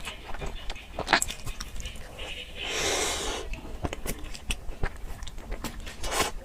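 Close-up eating sounds: sharp bites, crackles and mouth clicks from chewing dessert, with a short hissing rustle about three seconds in.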